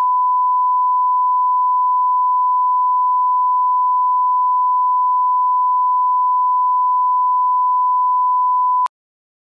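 1 kHz line-up test tone of the kind played with SMPTE colour bars: a single pure beep held perfectly steady, which cuts off abruptly near the end.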